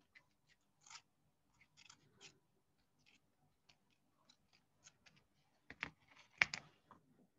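White tape being wound down wired flower stems by hand: faint, scattered scratchy rustles and small ticks. About six seconds in come two sharper clicks and a short crackle, the loudest sounds.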